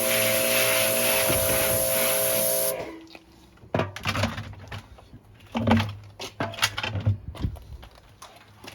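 A steady spraying hiss with a machine hum under it, cutting off suddenly about three seconds in, followed by scattered knocks and clatter of parts being handled.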